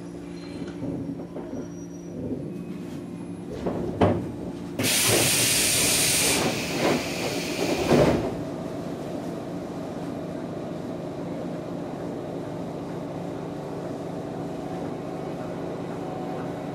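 JR 115-series electric train coming to a stop at a platform. A loud blast of compressed-air hiss comes about five seconds in, and a sharp knock follows at about eight seconds as the pneumatic doors open. After that there is only the steady hum of the standing car's equipment.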